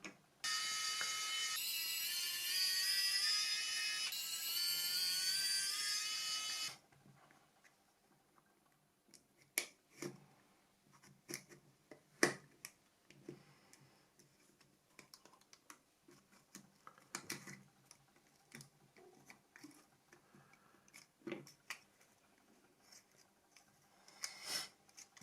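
Small electric screwdriver whining as it backs out the phone's housing screws, its pitch rising slowly over about six seconds. Scattered light clicks and taps of small plastic and metal parts being handled follow.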